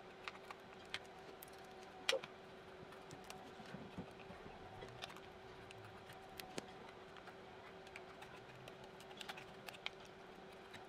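Small scissors snipping clear tape on a plastic compact lid: scattered faint clicks and snips, the loudest about two seconds in.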